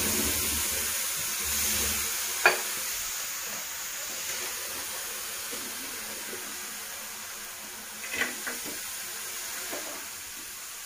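Water heating in a pan on a gas stove, hissing steadily and slowly fading, as grated jaggery is added to start the syrup. There is a sharp click about two and a half seconds in and a few light knocks near the end.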